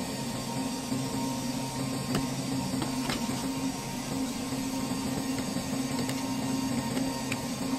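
A steady machine hum with a few faint ticks.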